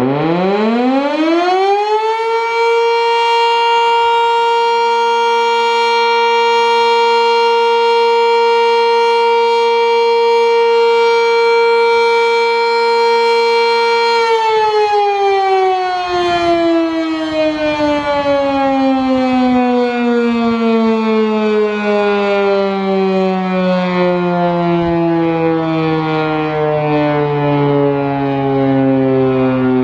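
Sentry 3V8 electromechanical civil-defense siren, driven by a 3-phase motor, sounding the steady alert signal. It is loud. It winds up from the start to a steady tone within about two seconds and holds it for about twelve seconds. Then the power drops and the pitch falls slowly in a long wind-down, still sounding at the end.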